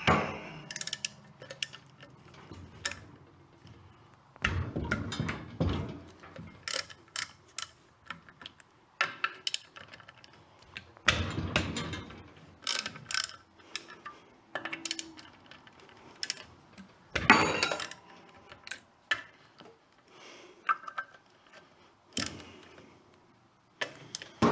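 Socket ratchet clicking in irregular spells, with metal clanks and knocks, as the cylinder head nuts of a John Deere Model E hit-and-miss engine are worked loose. There are louder spells of clatter about 5, 11 and 17 seconds in.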